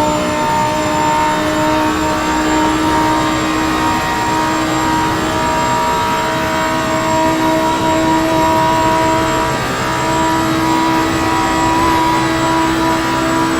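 Lamborghini Huracán Performante's V10 engine running at a steady engine speed, a constant drone with little change in pitch, over a haze of road and wind noise.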